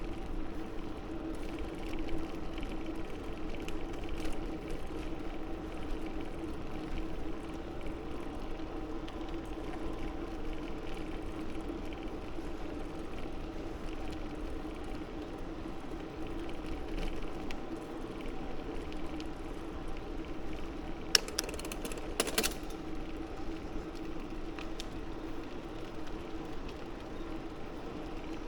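Bicycle in motion: a steady hum from the tyres and drivetrain, with rumble underneath. A few sharp clicks come about 21 seconds in.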